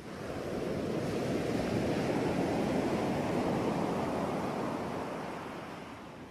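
Ocean waves on a shore: a steady wash of surf that swells up about a second in and slowly ebbs away.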